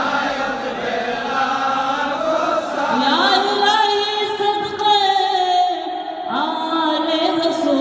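A man's voice chanting salat-o-salam, the Urdu/Bengali devotional salutation to the Prophet, into a microphone. It is sung in long, wavering held notes.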